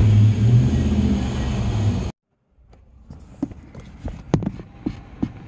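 Steady low hum of a car engine running, which cuts off abruptly about two seconds in. After that it is quiet, with a few light knocks from someone settling into a car's driver seat.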